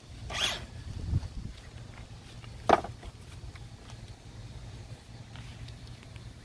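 Handling sounds of a cordless circular saw and a wooden board: a brief rustle, a soft thump, then one sharp knock nearly three seconds in as the saw is set down on the board. The saw's motor is not running.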